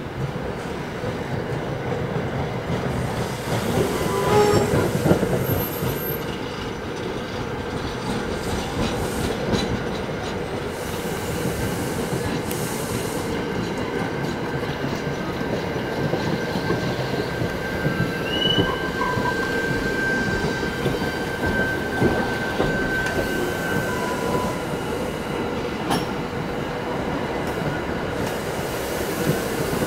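New Jersey Transit Comet passenger coaches rolling past, wheels rumbling and clicking over the rail joints, with a thin, steady high wheel squeal through the middle stretch.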